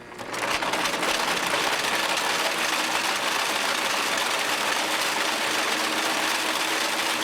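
Wire-harness braiding machine running, its 24 thread cops circling in opposite directions to braid cotton over a wire harness. It comes up to speed in the first half second, then runs with a steady, even whirr and a faint hum.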